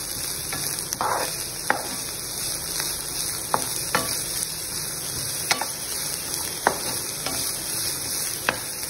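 Julienned cabbage, carrot and capsicum sizzling in hot olive oil in a frying pan as a wooden spoon stirs them, with sharp, irregular taps of the spoon against the pan.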